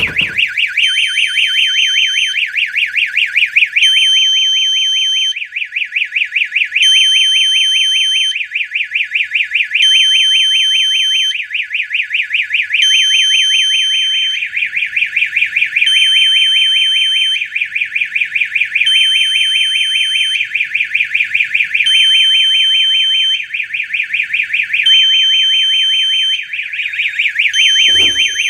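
System Sensor P4RL fire alarm horn sounding in alarm with a custom coded tone: a loud, fast-warbling tone throughout. Over it, a steady higher tone switches on for about a second and a half roughly every three seconds.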